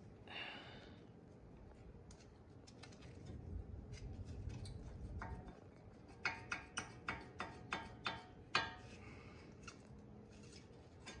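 Faint metal clicks and clinks from brake pads and caliper hardware being handled. The clicks are scattered at first, then come as a quick run of about ten short clinks that ring briefly, about six seconds in.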